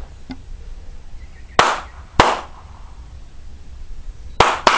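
Hand claps: two sharp claps about half a second apart, then a quick pair near the end, made to scare a flock of wood pigeons into flight.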